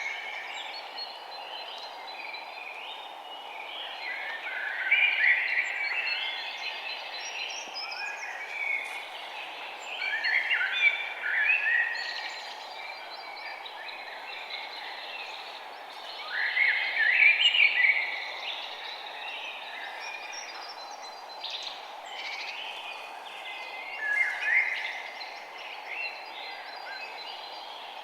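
Birds chirping in loose bursts every few seconds, over a steady background hiss.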